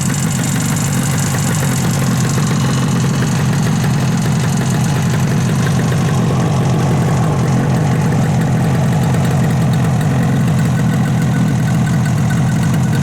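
Suzuki T350's two-stroke twin engine idling steadily, its first run after a full restoration.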